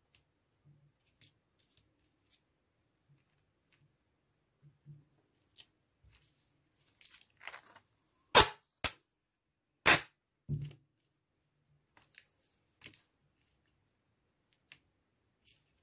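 Small metal bezel frames being handled, set down and pressed onto clear adhesive tape: light clicks and rustling, with two sharp, loud snaps about eight and ten seconds in.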